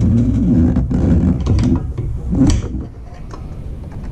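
Long wrench working a front brake caliper mounting bolt loose on a 1983 Honda Shadow VT750C: scattered metal clicks and creaks, over a steady low hum.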